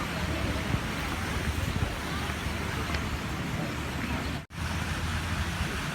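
Strong wind buffeting the microphone: a steady rushing roar with heavy low rumble. It cuts out completely for an instant about four and a half seconds in.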